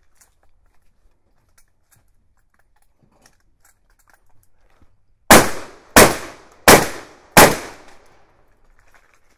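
Four shotgun shots in quick succession, about two-thirds of a second apart, each sharp report trailing off in a short echo. The shots follow several seconds of faint clicks.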